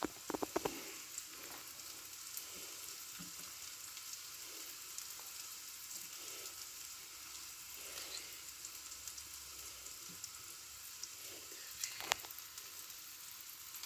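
Faint steady sizzling of sliced onions frying with spices in oil in a pan, with small crackles, a few light clicks just after the start and a sharper tap about twelve seconds in.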